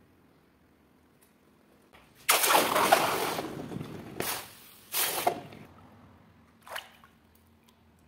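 A freshly cast, still-hot metal ingot quenched in a bucket of water: a sudden loud hissing sizzle about two seconds in as the water flashes to steam, fading over a couple of seconds, then three shorter bursts of hissing.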